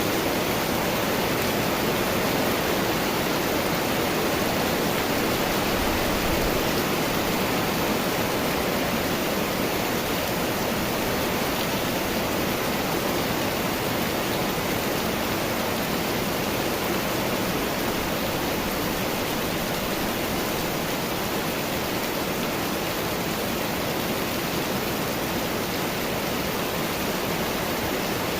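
Steady summer rain falling, an even, unbroken hiss that neither builds nor eases.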